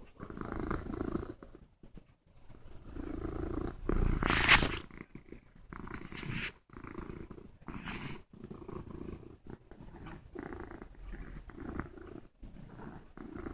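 Domestic cat purring right against the microphone, in slow, even in-and-out cycles. Loud rubbing and scraping noises about four and a half seconds in, and again briefly around six and eight seconds, come from the cat shoving its face against the phone.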